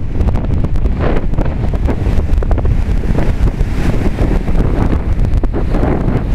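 Strong gale wind buffeting the microphone in loud, rumbling gusts, with storm surf washing in under it.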